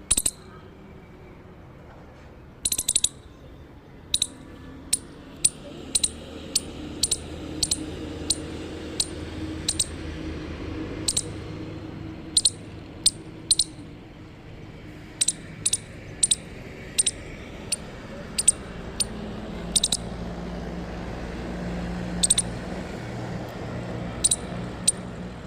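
Indian palm squirrel chirping: a long series of short, sharp, high-pitched chips, mostly in runs of about two a second with short pauses, some coming as quick doubles. A steady low rumble runs underneath.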